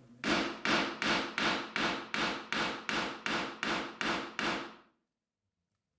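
Hammer tapping a finish nail part way into wooden door stop molding. About a dozen light, even taps come roughly three a second, driving the nail only far enough to hold the molding for a test fit.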